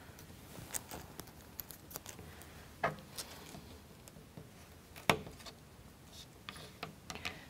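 Light clicks and taps of small plywood model-kit parts and a pencil being handled on a cutting mat, with sharper clicks about three and five seconds in.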